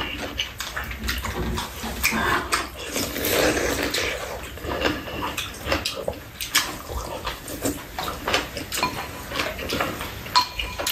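Eating noises: wet slurping and chewing of bean-sprout egg soup and squid, with spoons and chopsticks clicking against the bowls now and then.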